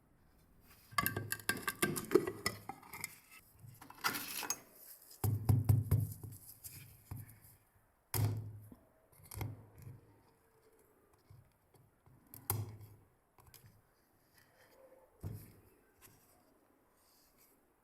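Irregular knocks and clatters of tools and parts being handled on a workbench: a busy rattle with some ringing in the first few seconds, then four single knocks spaced a few seconds apart.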